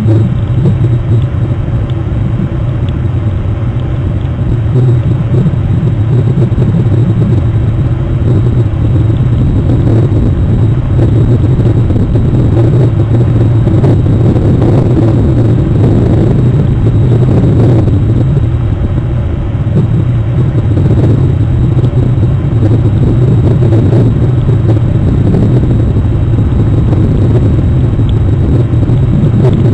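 Distant cruise ship's engines: a steady low drone heard across the water as the ship passes.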